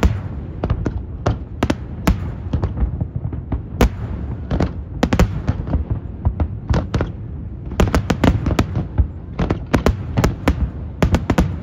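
Aerial fireworks shells bursting in rapid, overlapping bangs over a continuous low rumble, the sharp cracks coming thickest about eight seconds in and again near the end.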